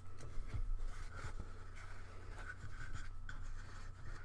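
Light scratchy rubbing of a foam strip being handled by hand and worked into a wooden frame, with a few small clicks.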